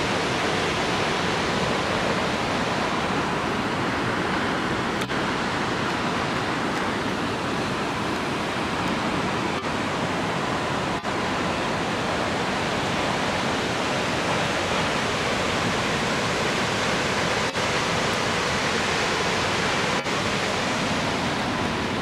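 Steady rushing of Vettisfossen, a tall free-falling plunge waterfall, its water crashing into the gorge below in an unbroken roar of white noise.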